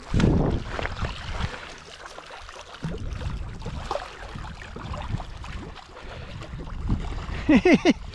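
Wind buffeting the microphone over water sloshing and splashing as a hooked garfish is played in at the water's edge, with a loud gust at the start.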